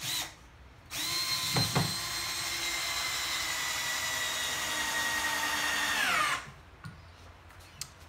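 Cordless drill on slow speed driving a 100 mm screw through 70 by 35 timber: after a short blip, a steady motor whine lasts about five seconds, sagging slowly in pitch under load, then winds down quickly as the trigger is released.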